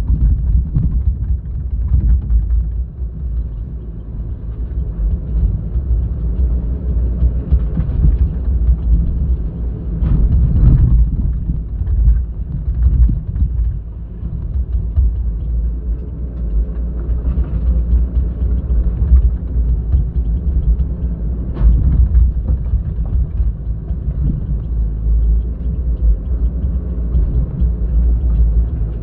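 Heavy diesel engine of an excavator running steadily with a low rumble, with a couple of brief sharper noises about ten seconds in and again near twenty-two seconds.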